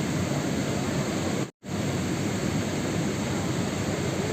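Steady rain noise, an even rushing hiss weighted toward the low end, that drops out to silence for a split second about a second and a half in, then resumes unchanged.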